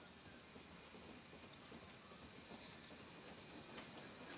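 Near-silent bush ambience with three faint, short bird chirps. The distant steam locomotive becomes faintly audible near the end as it approaches.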